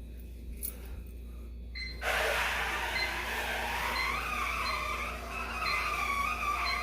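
Robot vacuum running: a steady motor-and-brush noise with a whine that wavers slightly in pitch, starting abruptly about two seconds in after a quieter stretch with a few faint clicks.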